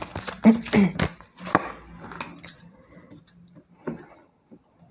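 A tarot card drawn from the deck and laid down on a cloth-covered table: a few soft taps and a rustle of card handling. A short voice-like sound comes in the first second.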